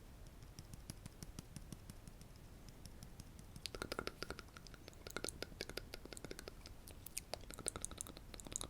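Rapid light tapping on an object: a dense run of small sharp clicks, faint at first and louder from about halfway in.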